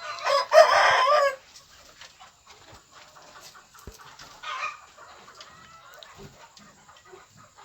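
Chickens clucking and calling, with one loud call in the first second or so, a shorter one about four and a half seconds in, and faint clucking in between.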